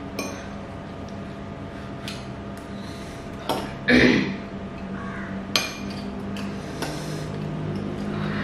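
Eating noises: metal forks and spoons clinking against ceramic bowls, with one loud noodle slurp about four seconds in.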